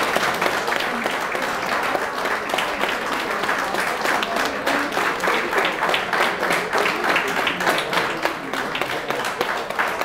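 Audience applauding: many hands clapping steadily.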